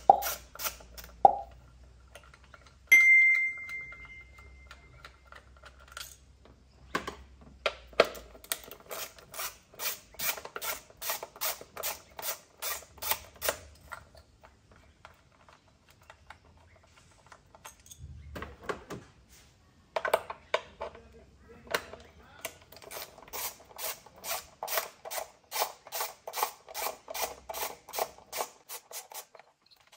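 Hand ratchet wrench with an extension clicking in two long runs of quick, even clicks while loosening spark plugs. About three seconds in, a sharp metallic clink rings briefly.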